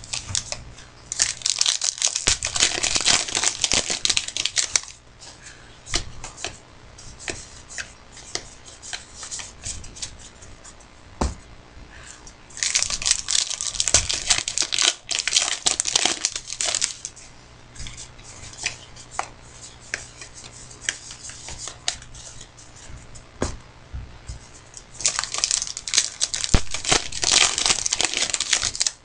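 Trading-card pack wrappers being torn open and crinkled, in three rustling bursts about ten seconds apart, with small clicks and taps of cards being handled between them.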